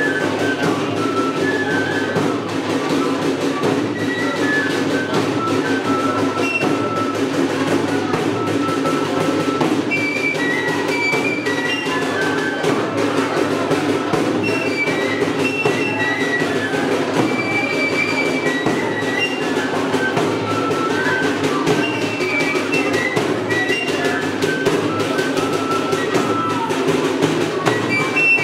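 Andean festive dance music: drums beating, with a high melody of short notes stepping up and down above them.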